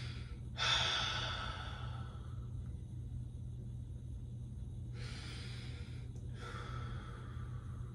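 A man breathing slowly and deeply through meditation: a long breath out starting about half a second in and fading away, then after a pause a breath in around five seconds and another long breath out.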